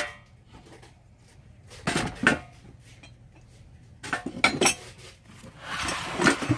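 Metal tins, a cast iron teapot and a wooden box being set down into a plastic laundry basket: clattering knocks and metallic clinks in three short bunches, about two, four and six seconds in.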